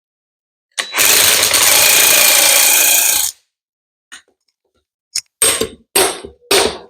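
A power tool running in one steady two-second burst, then after a pause in a string of short bursts about half a second apart.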